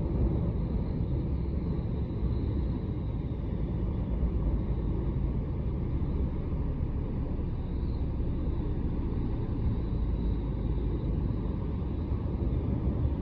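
Typhoon wind buffeting the microphone: a dense low rumble that swells and dips with the gusts.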